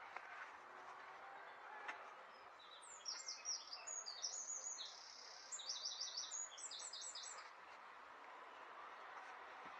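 A small songbird singing a rapid, high-pitched twittering song for about four seconds, with a short break partway through, over faint steady outdoor background noise.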